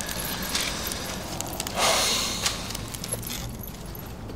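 Small clinks of a thin gold chain and rustling of paper handled on a desk, with a louder rustle about two seconds in.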